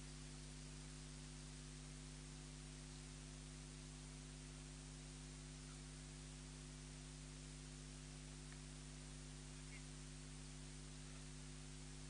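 Near silence: only a faint, steady electrical hum and hiss, unchanging throughout.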